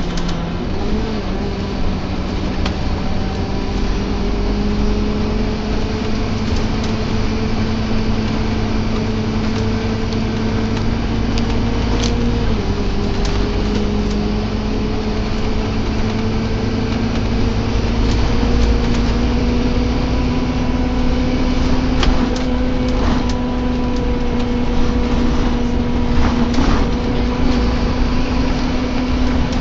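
Interior of a Scania Omnilink K230UB single-deck bus under way: a low running rumble with a steady groaning tone over it. The groan slowly rises in pitch, drops suddenly about twelve seconds in, then climbs slowly again, with a few light rattles and clicks.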